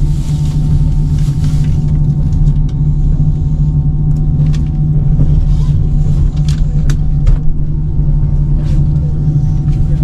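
Steady low rumble of a moving vehicle, with a faint steady whine above it and a few sharp clicks scattered through.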